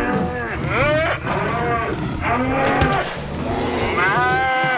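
Cow mooing, several calls in a row.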